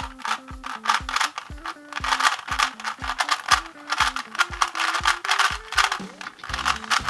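Background music with a steady beat of about two thumps a second. Over it comes the rapid clicking and clacking of an original Rubik's Cube being turned fast in a speedsolve.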